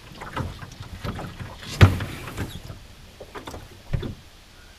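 Knocks and scrapes from a Melonseed sailing skiff's hull as it is handled at the water's edge, the loudest a sharp thump a little under two seconds in and another thump about four seconds in.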